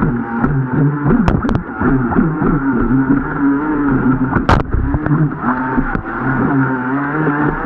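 RC jet boat's motor running with the throttle worked up and down, its pitch rising and falling constantly. A few sharp knocks, the loudest a little past halfway.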